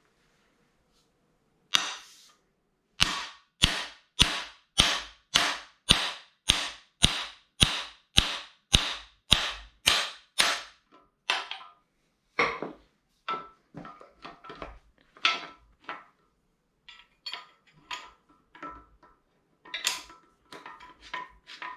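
Hammer blows on a camshaft bearing removal tool, driving a cam bearing out of a 350 small-block Chevy engine block: a steady run of hard strikes about two a second, then lighter, uneven taps with a faint metallic ring in the second half as the bearing comes free.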